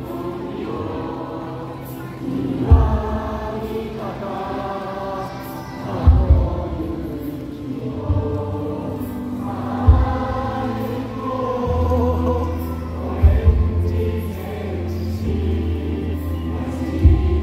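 Stadium crowd of football supporters singing their club anthem together in long held notes. A heavy drum thump lands about every three and a half seconds.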